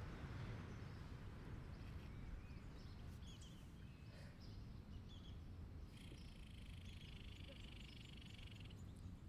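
Faint outdoor ambience: small birds chirping here and there. About six seconds in, a steady buzzing trill, high in pitch, runs for nearly three seconds and then stops. A low rumble lies underneath.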